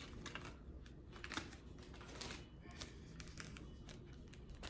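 Faint light clicks and taps from handling small plastic toiletry containers, scattered irregularly.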